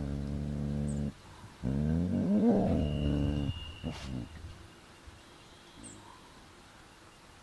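Lion growling twice: a steady low growl of about a second, then after a short break a longer one that wavers in pitch. A few faint bird chirps follow in the quiet.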